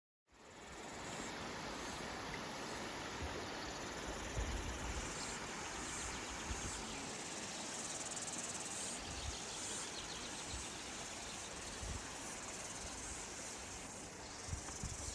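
Insect chorus: a steady high buzzing whose strength steps up and down every second or so, over irregular low thumps.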